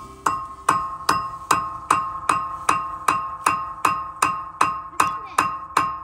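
Hammer blows on steel, struck steadily about two and a half times a second, each blow ringing with the same clear metallic note.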